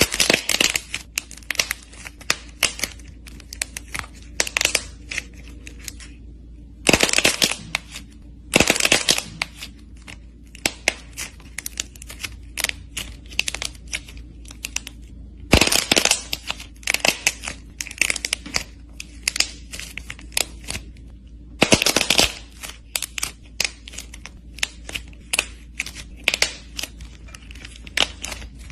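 A dried clay shell crackling as fingers squeeze and crush it: dense, sharp little snaps, with louder clusters every few seconds.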